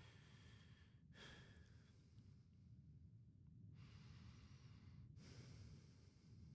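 Near silence: a steady low room hum, with two faint breaths through a headset microphone, about a second in and again around four seconds in.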